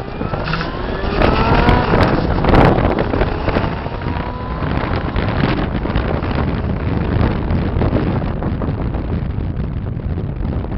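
Motorcycle engine accelerating, its pitch rising over the first few seconds, then running steadily at speed, under heavy wind noise on the microphone.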